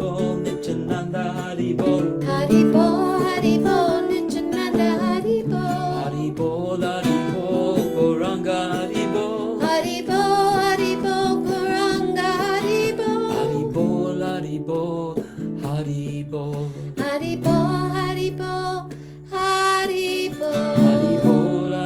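Kirtan music: devotional mantra singing with instrumental accompaniment, held notes sounding steadily beneath the voices.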